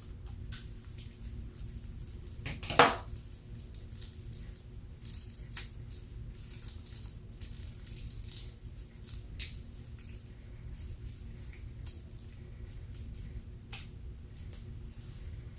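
Slime being squeezed and worked by hand, giving scattered small sticky clicks and crackles, with one louder sharp knock about three seconds in, over a steady low hum.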